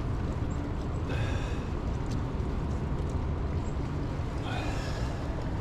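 Steady low outdoor rumble with two faint breathy sounds, one about a second in and one near the end.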